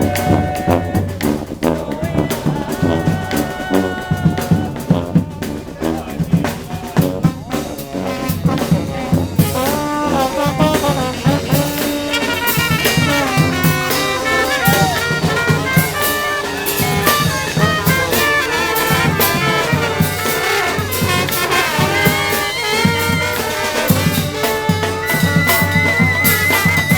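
Street brass band playing live: horns such as trumpets and trombones over drums.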